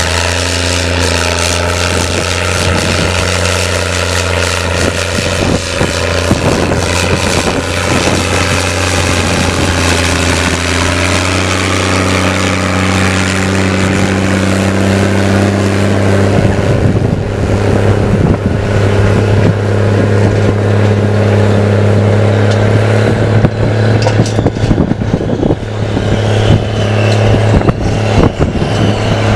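Case IH 1455 XL tractor's six-cylinder diesel pulling hard through a stainless straight exhaust stack while dragging a subsoiler deep in the soil, running at a steady, unchanging pitch. From about halfway a rougher crackling and rushing noise joins the engine note.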